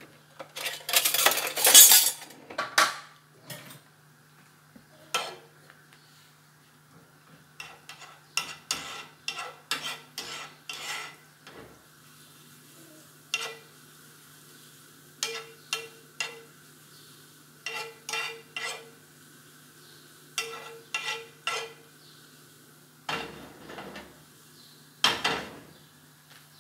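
A spoon stirring minced garlic frying in olive oil in a non-stick frying pan: repeated short clinks and scrapes of the spoon against the pan, loudest in the first few seconds, over a light sizzle.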